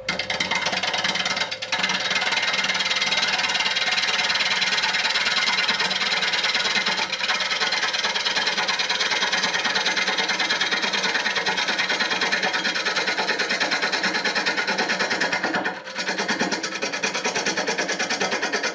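Bowl gouge cutting across the bottom of a spinning wood bowl blank on a lathe: a steady shearing noise with a fast, even pulse, the edge catching an uneven blank that is not yet flat. The cut lets up briefly about three-quarters of the way through, then carries on.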